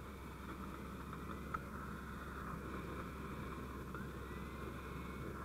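Ford truck engine idling steadily, a low hum under a hiss, with one faint click about a second and a half in.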